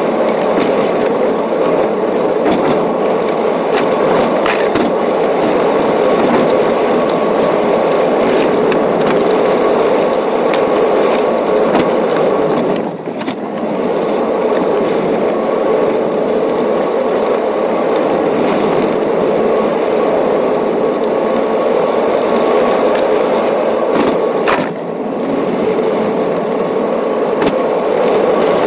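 Car driving along a gravel road, heard from inside the cabin: a steady rumble of tyres on loose gravel with small stones clicking and pinging, over a thin steady tone. The rumble eases briefly twice, about a third of the way in and again near the end.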